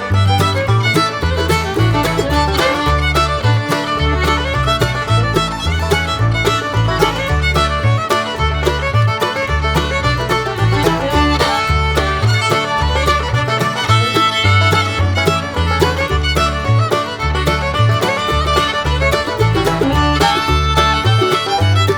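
Upbeat fiddle music in a bluegrass or country style, with a steady bass beat.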